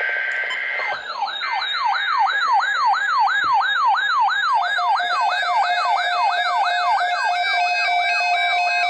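An electronic siren-style alert tone, loud, sweeping down in pitch over and over at about three sweeps a second. It follows about a second of a steady two-note tone. About four and a half seconds in, a steady lower tone and a beeping higher tone join the sweeps.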